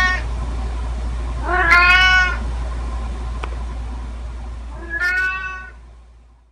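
Domestic cat meowing: the end of one meow at the start, then two more meows, about a second and a half and five seconds in.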